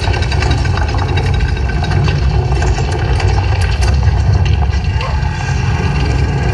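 A steady low rumble of an engine idling.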